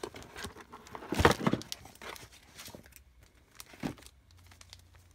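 Plastic packaging crinkling and rustling as a detachable laptop keyboard in clear plastic film is lifted out of its moulded box tray, with scattered light clicks. The loudest rustle comes about a second in, and a shorter one near four seconds.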